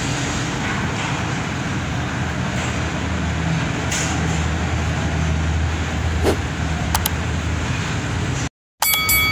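Steady outdoor traffic rumble, a vehicle engine running nearby under a wash of street noise. Near the end the sound cuts out for a moment and a short electronic chime rings.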